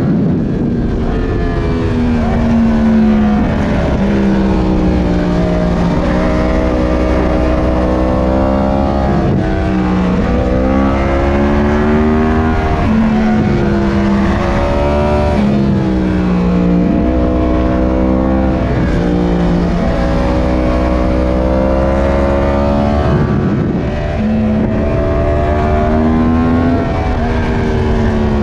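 Yamaha R1's CP4 crossplane inline-four engine under hard acceleration. Its pitch climbs and drops sharply again and again as it shifts through the gears, with a brief dip in pitch and loudness near the end before it pulls again.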